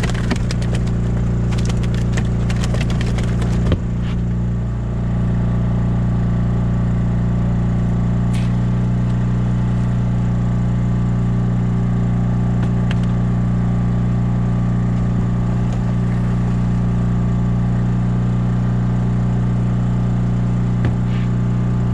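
Small engine-driven generator running at a steady speed with an unchanging hum, powering the boat's LED flood lights. Light clicks and rattles of gear being handled in the first few seconds.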